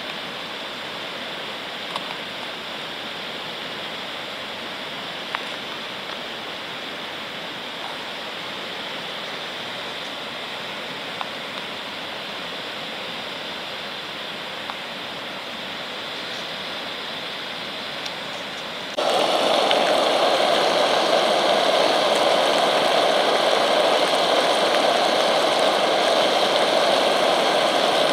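A stove fire burning with a steady hiss and a few faint crackles. About two-thirds of the way through, it switches abruptly to a much louder, steady rushing roar like that of a pressurised liquid-fuel burner running at full flame.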